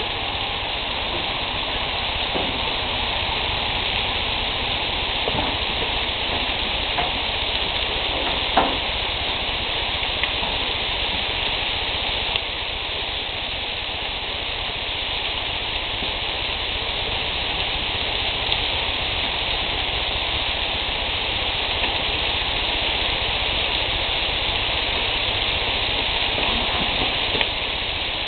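Bacon-wrapped quail breasts sizzling on a grill: a steady frying hiss with occasional sharp pops, the loudest about eight and a half seconds in.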